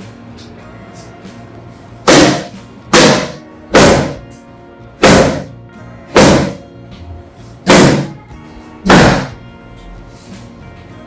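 Seven loud thumps, roughly a second apart, from hands-on chiropractic work on the patient's body, over background music.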